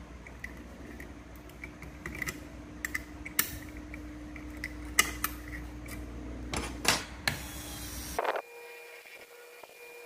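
Small metal clicks, taps and scrapes as a nut and washer are fitted onto a motor shaft and tightened with a small spanner to hold an abrasive cutting disc. Near the end the clicking stops and gives way to a quieter steady hum.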